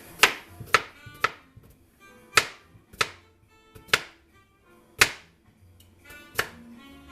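Knife chopping red potatoes on a cutting board: about eight sharp, irregularly spaced chops, under jazz music.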